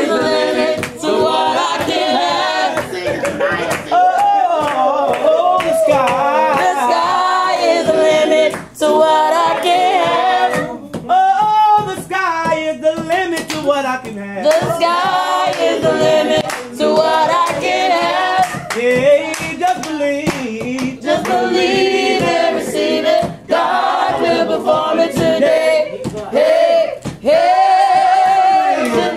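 A small choir of mixed men's and women's voices singing a gospel song a cappella in harmony, with hands clapping along.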